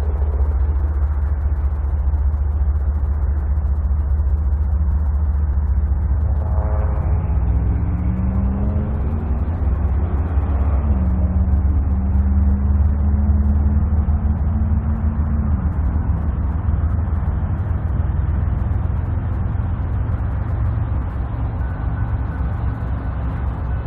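Freight train diesel locomotives running with a heavy low rumble. From about seven seconds in, an engine tone rises in pitch, drops sharply around eleven seconds, then holds and fades out about sixteen seconds in.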